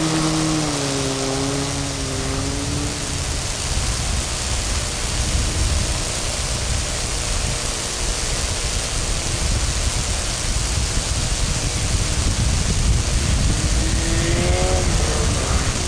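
Half-track snow buggy's motor running as it drives off across the snow: its pitch drops about a second in and fades under a steady rushing noise, then a rising tone comes back near the end.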